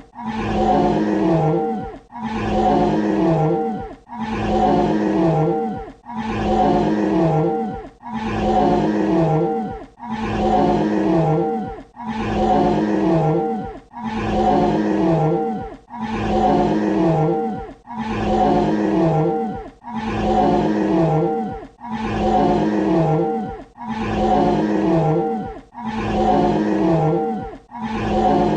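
A dinosaur roar sound effect: a single loud roar of about two seconds, looped back to back with a brief gap between repeats.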